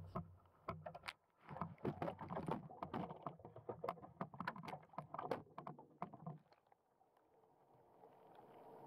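Water splashing and knocking around a bait boat's underwater camera as it goes into the shallows: a run of irregular clicks and splashes. After about six seconds this quietens and a steady hum fades up, the Waverunner Mark 3 bait boat's motors driving it out, heard through the water.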